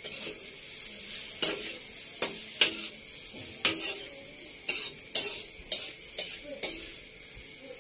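Fried tiwul (cassava rice) sizzling in a wok while a metal spatula stirs it, striking and scraping the pan about ten times; the strikes stop near the end while the sizzle goes on.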